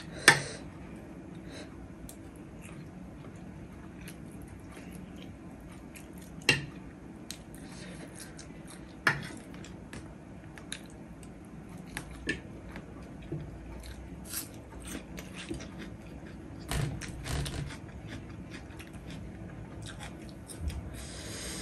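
Close eating sounds: a metal spoon clicking and scraping on a ceramic plate of rice, with chewing between the clicks. The few loudest clicks are sharp and spaced several seconds apart.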